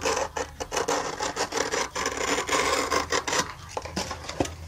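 A pen rubbed back and forth along a white foam-board panel in quick rough strokes, marking it, that stop a little over three seconds in. Near the end, one light knock.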